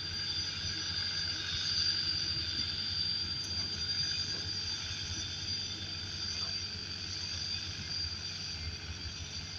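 Sakai road roller's diesel engine running steadily as the roller creeps over a sand road bed, a low rumble.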